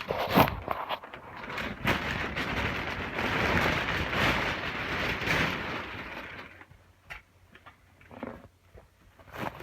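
Plastic packaging being unwrapped: several seconds of continuous crinkling and tearing, then a few scattered handling clicks and taps near the end.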